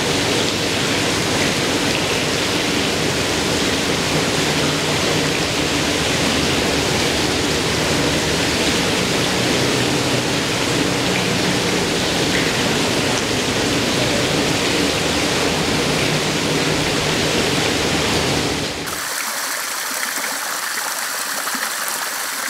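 Water from a 26-jet fan fountain nozzle falling back into a pool: a steady, dense rush and splash of water. About nineteen seconds in it changes suddenly to a thinner, hissier water sound with the low rumble gone.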